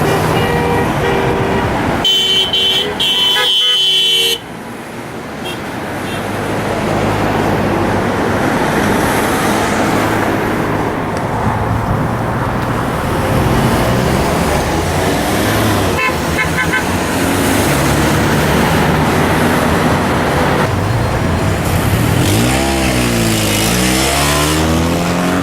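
A car horn honks for a couple of seconds near the start, a driver's signal of support. Then comes the steady rush of heavy highway traffic, with engines sweeping in pitch as vehicles pass near the end.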